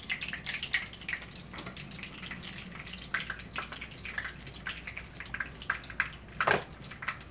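Breaded cheese frying in shallow oil in a pan, sizzling with many small irregular crackles and pops, and one louder crack near the end.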